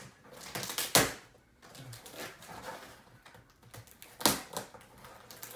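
A cardboard shipping box being handled and its flaps pulled open, with two loud, sharp clacks of cardboard, about a second in and a little after four seconds, and soft rustling of the box between them.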